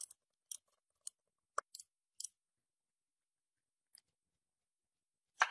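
A run of short, sharp clicks and small scrapes, about seven in the first two seconds, then a pause with one faint tick and a louder scrape just before the end.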